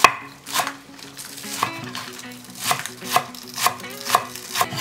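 Santoku knife chopping green onions on a wooden cutting board: about eight sharp knocks of the blade hitting the board, unevenly spaced at first, then settling to roughly two a second.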